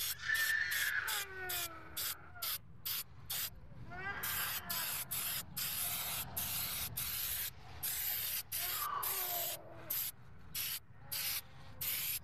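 Aerosol spray-paint can hissing in short bursts, about two or three a second, with longer sprays in the middle, as paint goes onto a steel wheel. A child whimpers in the background.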